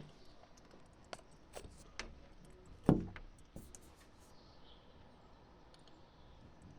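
A few scattered sharp clicks and knocks over a faint steady hiss; the loudest, a knock with a low thud in it, comes about three seconds in.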